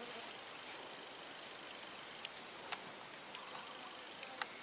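Insect trilling, a high-pitched, rapidly pulsing sound that cuts off about three seconds in, with a fainter, lower insect trill beneath it. A faint sharp tick comes near the end.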